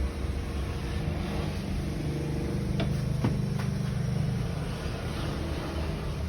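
Steady mechanical hum from running machinery, with three sharp clicks close together about three seconds in.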